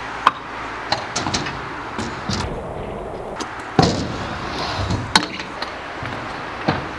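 Stunt scooter wheels rolling on a skatepark ramp, with several sharp clacks and knocks from the scooter hitting the ramp surface, the loudest about four seconds in.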